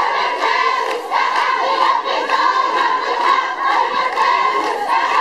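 Crowd of women chanting protest slogans together in a steady rhythm.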